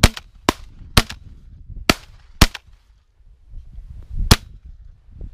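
Shotguns fired at a flock of ducks: six sharp reports in quick succession from more than one gun, over about four seconds, with a gap before the last shot.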